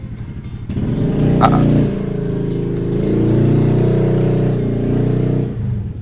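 A motor vehicle engine running close by, rising and falling in pitch. It comes in suddenly about a second in and fades near the end.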